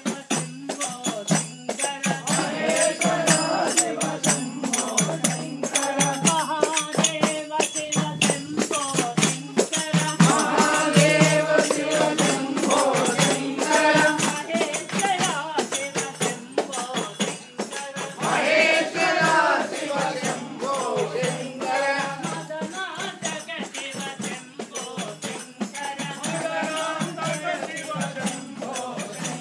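A group of devotees singing a Hindu devotional bhajan together, with jingling hand percussion keeping a fast, steady beat.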